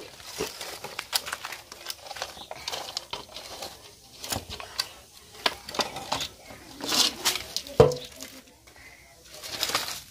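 Lumps of charcoal scraping and clinking as they are gathered by hand from a stone fire hearth into a metal pan: an irregular run of small clicks and clatters, with a sharper clatter about eight seconds in.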